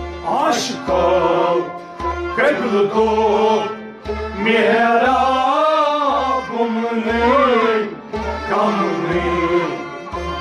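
A male voice sings a Kashmiri Sufi kalam in long, ornamented, wavering phrases over a harmonium drone, with a steady low drum beat underneath.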